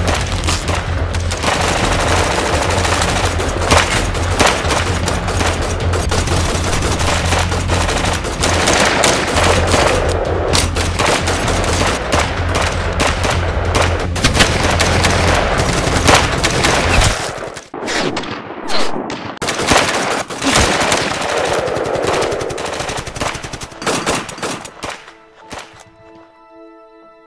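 Sustained automatic gunfire from rifles and submachine guns, many overlapping bursts, over a low droning music bed. About two-thirds of the way in the drone drops out and the shots grow sparser, dying away near the end as soft, held music chords come in.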